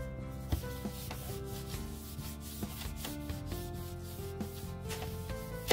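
A tissue rubbing and wiping over a laptop's aluminium bottom case, with background music of held notes stepping through a melody.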